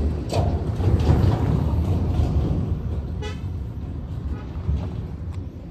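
Truck engine rumbling low and fading as the truck slows to a stop on the road, with a short horn toot about three seconds in.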